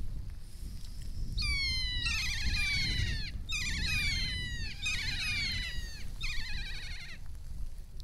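Kea calling: a string of about five drawn-out calls, each sliding down in pitch, some overlapping, starting about a second and a half in and stopping near the end, over a low wind rumble on the microphone.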